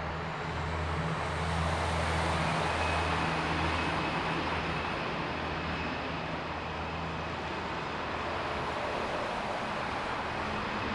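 Jet airliner engines heard across the airfield: a steady rushing noise with a faint high whine, swelling about two seconds in and then slowly easing.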